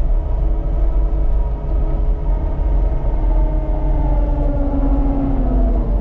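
Cat skid steer loader's diesel engine running steadily as the machine drives over to dump a bucket of scraped material, its pitch dipping slightly about two thirds of the way through.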